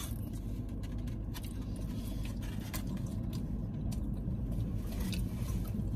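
Steady low hum inside a car, with faint clicks and smacks of someone chewing a bite of chili hot dog.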